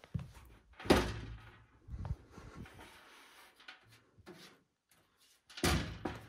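Handling noises from a PC case and its packaging: two loud knocks, about a second in and near the end, each followed by a brief rubbing sound, with lighter clicks and rustling between them.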